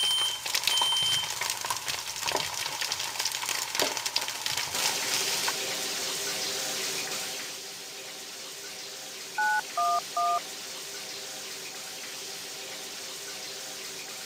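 Sound effects of a house fire put out by a sprinkler: a smoke alarm's high beep sounds twice at the start over a crackling fire, which gives way to an even hiss of sprinkler spray. About nine and a half seconds in, three phone keypad tones dial 9-1-1.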